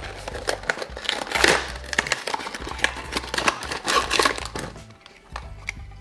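A small cardboard box and its plastic packaging being opened and handled: crinkling and crackling with sharp clicks, loudest about a second and a half in, over background music.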